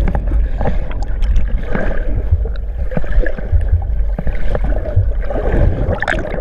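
Water heard from underwater through the camera's case: a muffled low rumble with scattered knocks. Near the end comes a rush of bubbles and splashing as the camera comes up to the surface.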